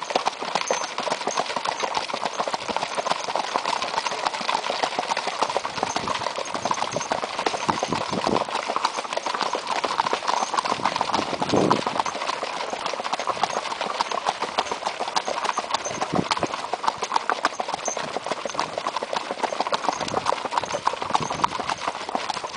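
Horses' hooves beating quickly and steadily on a gravel track as several horses move together at a gait.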